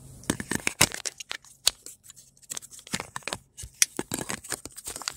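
Handling noise from a phone being moved and positioned by hand: irregular rubbing, scraping and clicking on the microphone.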